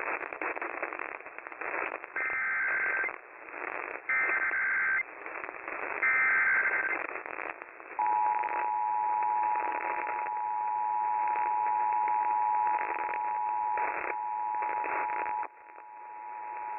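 Emergency Alert System tones broadcast over radio static: three short bursts of the SAME header data tones, about a second each, then the two-tone EAS attention signal held steady for about seven and a half seconds before it cuts off near the end. The tones mark the activation of a severe thunderstorm warning for relay to other stations.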